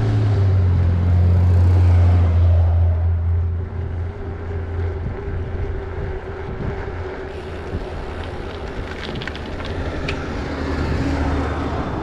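Shuttle bus engine droning as it passes close by, loudest in the first few seconds and then fading; a second shuttle approaches and passes near the end. Wind noise on the microphone from riding runs underneath.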